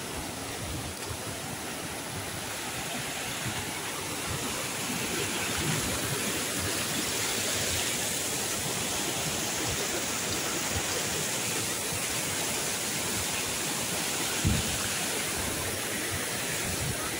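Mountain stream rushing and cascading over boulders, a steady rush of water. A single low thump sounds about three-quarters of the way through.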